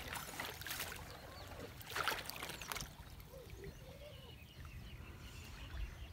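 Hands sloshing and splashing in shallow stream water while groping under the bank for fish, with two louder splashes about half a second and two seconds in.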